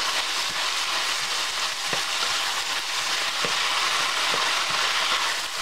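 Beef strips, bell peppers and onions sizzling steadily in a stainless steel frying pan as they are stir-fried with a wooden spatula, with a few light knocks of the spatula against the pan.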